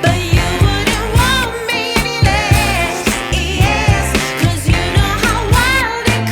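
Background pop music with a sung vocal line over a steady beat and bass.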